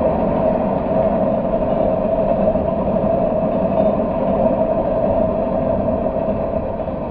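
Freight train of open-top hopper cars rolling past: a steady rumble and rattle of wheels on the rails, fading over the last second or two as the end of the train goes by.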